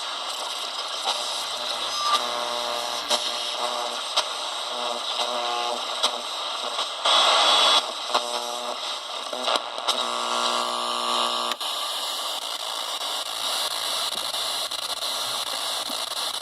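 Static and hiss from a cheap QFX shortwave radio's speaker as it is tuned across the band, with buzzing tones from off-station signals coming and going. A short loud burst of noise comes about seven seconds in.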